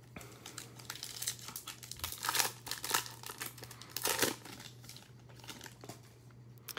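Foil wrapper of a Topps Chrome trading-card pack crinkling and tearing as it is handled and pulled open by hand, in a run of irregular crackles that are loudest midway.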